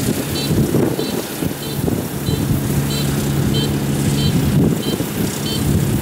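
Rice combine harvester's engine running steadily as it harvests rice, with a short high chirp repeating about three times every two seconds.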